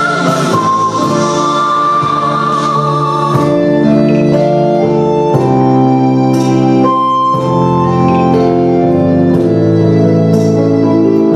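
Organ-like keyboard music playing sustained chords that change every second or two, with faint light ticks above them.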